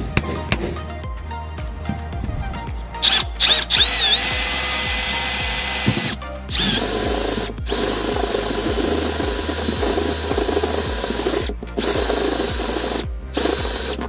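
Cordless drill boring a hole through a metal bumper-compartment hatch. It starts about three seconds in with a steady whine and runs in several stretches with short pauses between them.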